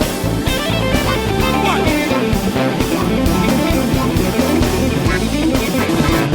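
Live funk band playing an instrumental passage, with electric guitar over bass guitar and a steady drum beat, and no vocals.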